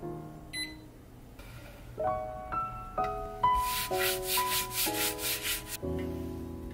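A hand wiping a wooden cutting board: a run of quick rubbing strokes, about five a second, lasting a couple of seconds midway, over soft piano music.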